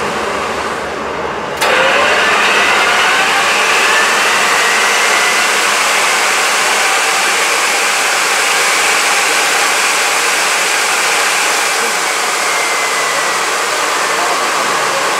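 Fairchild J44 turbojet running steadily: a loud, even roar with a faint whine above it. About one and a half seconds in, the sound suddenly gets louder and brighter, then holds steady.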